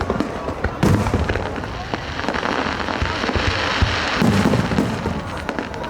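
Aerial fireworks bursting: a sharp bang about a second in, a stretch of dense crackling from about two seconds, then another bang a little after four seconds.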